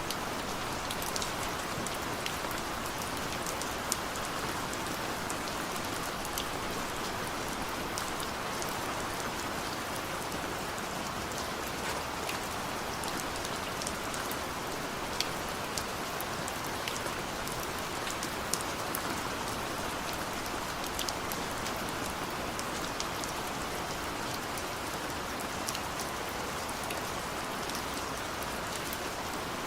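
Heavy rain falling steadily, an even hiss of rain with many sharp drop ticks scattered through it.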